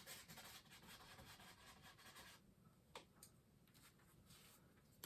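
Faint brush strokes on an oil-painted canvas: bristles rubbing through wet paint, quieter in the middle, with one small click about three seconds in.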